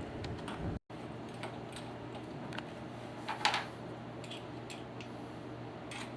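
Light scattered clicks and one short scrape about three and a half seconds in, from small metal hardware being handled: stainless steel glass clamps and their screws being fitted on plexiglass. A low steady hum runs behind, and the sound drops out for a moment just under a second in.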